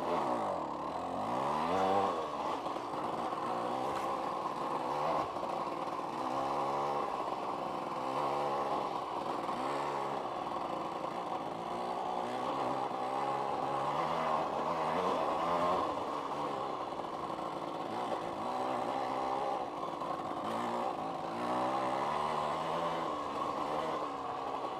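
1990s KTM two-stroke dirt bike engine revving and easing off over and over, its pitch rising and falling every second or two, as the bike picks through a slow, technical trail section.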